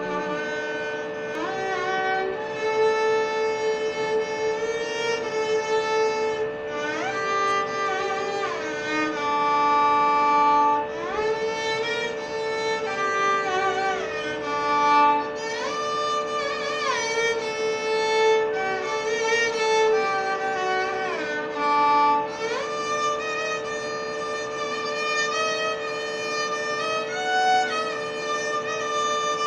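Violin playing a slow, unmetred Carnatic alapana in raga Mayamalavagowla, its notes sliding and bending between held pitches over a steady drone.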